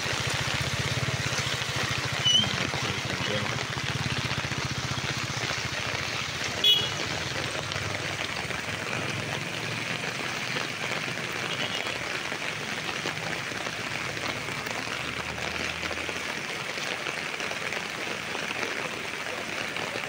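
Steady rush of water from rain and flooded runoff, with a low hum that fades out in the first half and two brief sharp chirps about two and seven seconds in.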